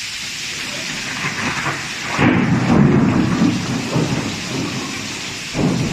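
Steady hiss of heavy rain and hail falling. About two seconds in, a louder, uneven low rumble rises over it for about two seconds, and another starts near the end.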